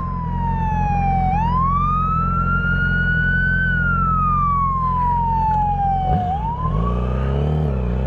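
Police siren sounding its wail, a slow falling and rising tone that sweeps down, up and down again, with a sport motorcycle's engine idling underneath. Near the end the engine revs as the bike pulls away.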